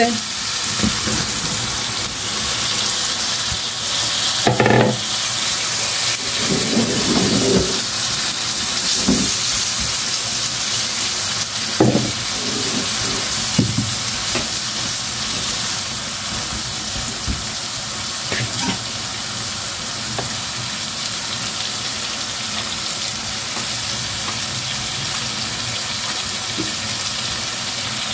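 Aubergine pieces sizzling in hot masala in a wok, a steady hiss of frying. A spatula stirs and turns them, with a few short knocks and scrapes against the pan in the first twenty seconds.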